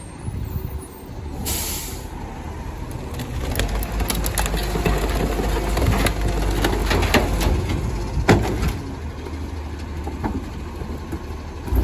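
Rear-loader garbage truck's engine running at the kerb, with a short hiss of air about a second and a half in. Then a series of bangs and clatters as hard-waste boards and furniture are thrown into the truck's hopper, the loudest knock near the end.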